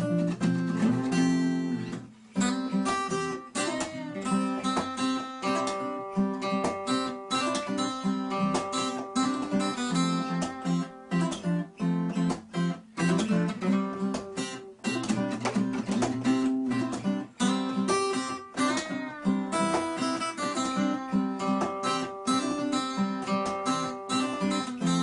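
Acoustic guitar music, plucked and strummed, with a brief break about two seconds in.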